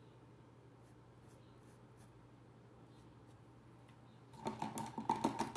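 Faint scratching of a paintbrush working paint into cotton dish-towel fabric. A louder burst of clicking and clatter starts a little over four seconds in.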